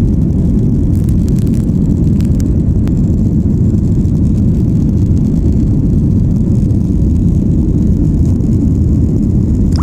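Air India Express Boeing 737-800 jet airliner during takeoff, a steady, loud low rumble of engines and airflow that does not change.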